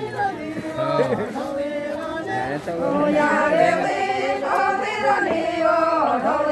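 A group of voices singing a traditional Adivasi wedding song, the kind sung while the bride and groom take their pheras, in long held notes.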